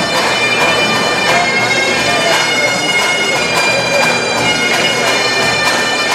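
Bagpipes playing a tune over their steady drones, with a crowd talking underneath.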